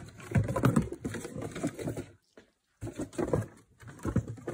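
A cardboard box and paper instruction sheets being handled and shifted on a desk: irregular scuffing, rustling and light knocks, with a brief dead-silent gap in the middle.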